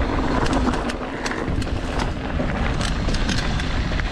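Mountain bike running fast down a rough trail: a steady low rumble of tyres and wind on the camera microphone, broken by many sharp clicks and rattles from the bike over bumps.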